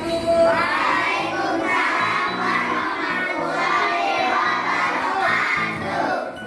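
Children singing a song over a steady instrumental accompaniment.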